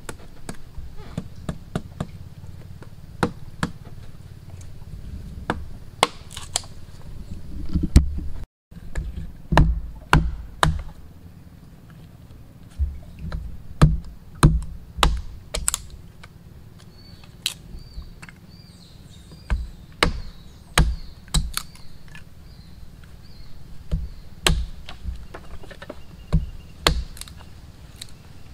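Irregular chopping and knocking, as of a hand tool striking wood, with sharp strikes often a second or two apart and a brief silence about eight seconds in.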